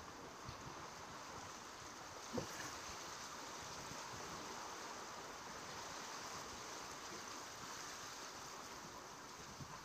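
Steady wash of small sea waves against a rock breakwater, with wind, and a short thump about two and a half seconds in.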